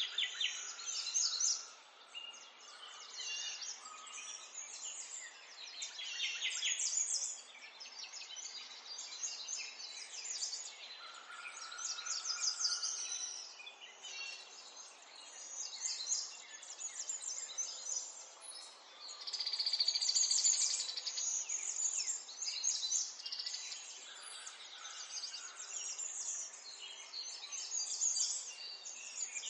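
Birds chirping and singing in rapid trilled phrases, one phrase after another with short gaps between.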